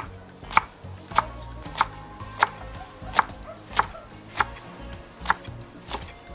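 Kitchen knife chopping wild garlic (ramsons) on a wooden cutting board: about ten sharp, evenly spaced strokes, a little under two a second.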